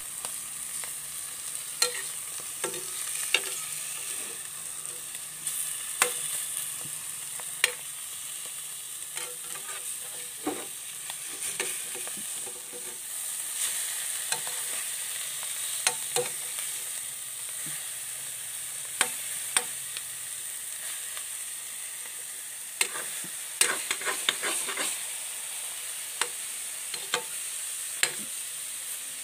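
Egg and fresh alamang (tiny shrimp) omelette frying in oil in a pan, a steady sizzle throughout, with scattered sharp clicks and scrapes of a utensil against the pan as the omelette is stirred and broken up, a quick cluster of them a little past the middle.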